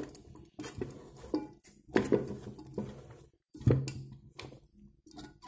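Silicone spatula stirring chunks of vegetables in a multicooker's cooking bowl: several irregular soft knocks and scrapes against the bowl as the vegetables shift.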